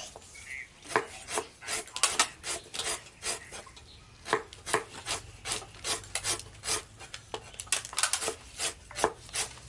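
Knife slicing lemongrass on a wooden chopping board: quick, sharp cutting strokes at about three a second.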